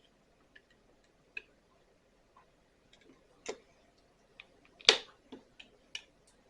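Irregular small clicks and taps of a hand tool working on a small plastic part to pry its two halves apart, with a sharper click about five seconds in.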